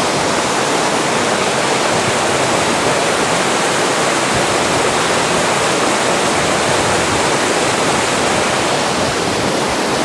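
A small waterfall and mountain stream running over stepped rock ledges, making a steady, even rush of water.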